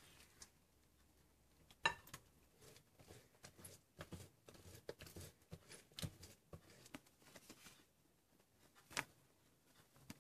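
Quiet small handling noises: light taps and rustles, with a sharp click about two seconds in and another near the end.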